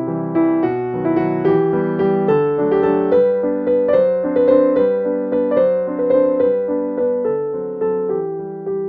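Background piano music: a gentle melody of evenly struck notes.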